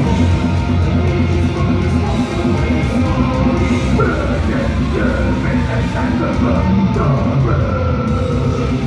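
A live heavy metal band playing loudly, with guitars, bass and drums, and a yelled vocal coming in about four seconds in.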